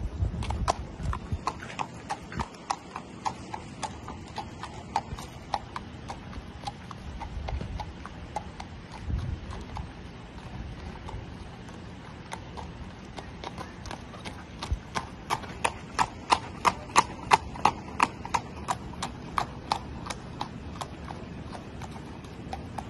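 Hoofbeats of a bay gelding trotting on hard-packed dirt: a steady clip-clop at about two to three beats a second. It fades in the middle as the horse moves off and is loudest again about two-thirds of the way through as it passes close.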